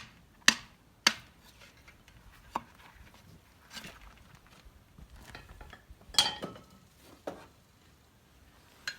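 Irregular metal-on-metal knocks and clanks, about seven in all, from work freeing the seized brake-shoe pins on a Zetor 6711 tractor's brakes; the loudest knock, about six seconds in, rings briefly.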